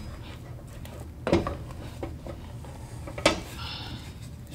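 A wooden turning stick knocks and scrapes against a stainless steel saucepan as thick pounded yam dough is turned and kneaded. Two sharper knocks land about a second in and a little after three seconds, with lighter taps between. A low steady hum runs underneath.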